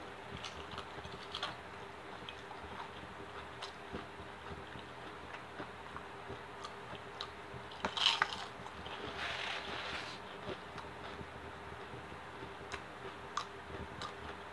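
Close-up eating sounds: quiet chewing with small scattered clicks of crunchy onion rings, a louder crunching bite about eight seconds in, then a second or so of crunching.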